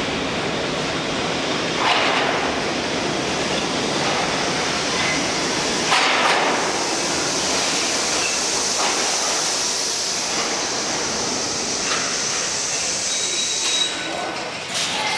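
R-68 subway train pulling into an underground station and coming to a stop: a steady rumble of wheels on rail with a few sharp knocks. From about seven seconds in a high-pitched sound rides over the rumble, then cuts off near the end as the train halts.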